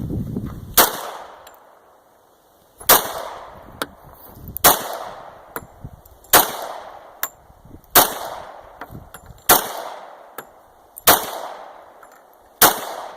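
Eight gunshots fired one at a time at a steady pace, about one every one and a half to two seconds, each followed by a short echoing tail, with small clicks between shots.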